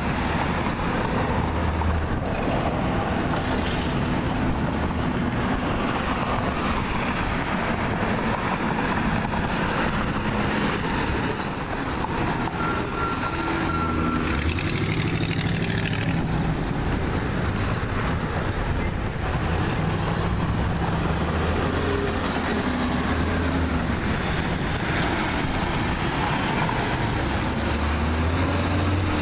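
Rear-loading garbage truck's engine running as it drives past along with other street traffic, with thin high squeals for a few seconds around the middle.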